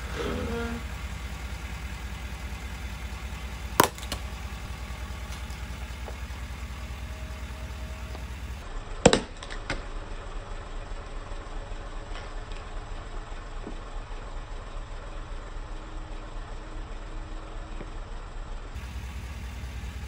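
Lifted Ford F-350 pickup's engine idling with a steady low rumble as its tire rolls over a plastic glue bottle. There are two sharp cracks, about five seconds apart, as the bottle is crushed and bursts.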